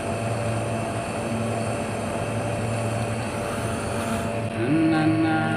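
Gas brazing torch hissing steadily while the refrigerator's charging pipe is sealed, cutting out about four seconds in.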